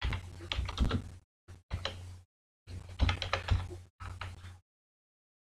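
Typing on a computer keyboard: several short runs of key clicks with brief pauses between them.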